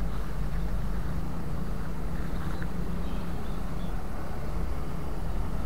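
An engine idling, a steady low rumble.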